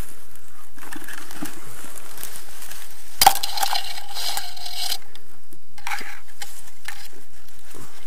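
Crunching and rustling of dry forest undergrowth being stepped through and handled, with a sharp snap about three seconds in followed by a couple of seconds of denser crackling.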